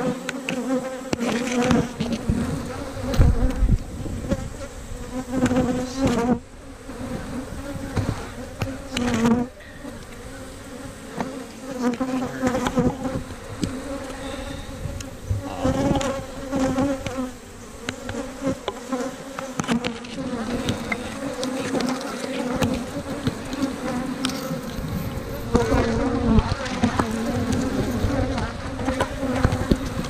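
Dense buzzing of many honey bees flying around an opened hive, a steady low hum that swells and fades as bees pass close. A few sharp knocks sound over it.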